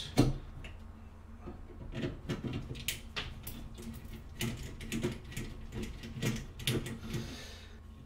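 Irregular small clicks and scrapes of a screwdriver working a GFCI receptacle's mounting screws, and of the receptacle being pulled out of a steel electrical box.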